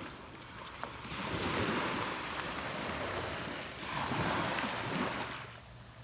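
Small waves washing up on a sandy beach, a rushing wash that swells about a second in, surges again around four seconds, and dies down shortly before the end.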